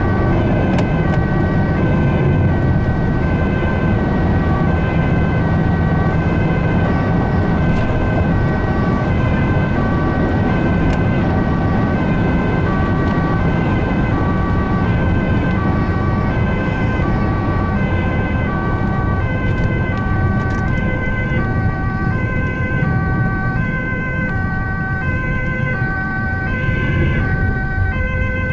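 Ambulance two-tone siren, switching back and forth between two pitches in a steady rhythm, over the rumble of the vehicle's engine and tyres on the road, with a steady thin high whine underneath.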